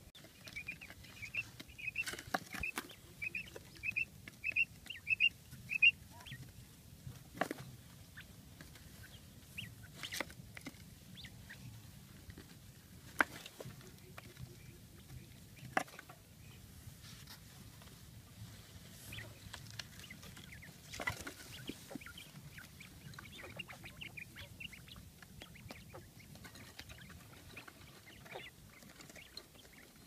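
Quail calling: a quick run of short, high chirps, about two to three a second, for the first six seconds, then scattered fainter chirps with a few sharp clicks.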